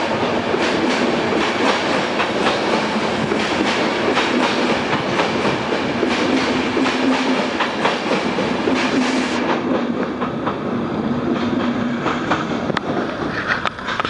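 Passenger coaches of a departing express train rolling past slowly, their wheels clattering in quick irregular clicks over rail joints and points. The clatter drops away near the end as the last coach passes.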